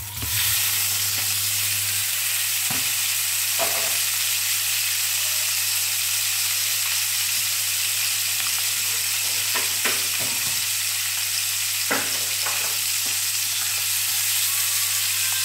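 Boiled quail eggs frying in hot butter and oil, a loud steady sizzle that jumps up as the eggs go into the pan. A few sharp clicks come as wooden chopsticks move the eggs about the pan.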